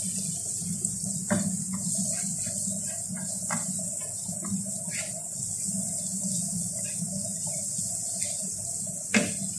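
Chopped tomato, onion and garlic sizzling in a non-stick frying pan over a steady hum, with a spatula stirring and scraping against the pan, giving scattered short scrapes and clicks.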